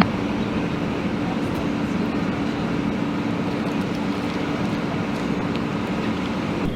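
Fire apparatus engine idling steadily: a constant low hum under an even rushing noise.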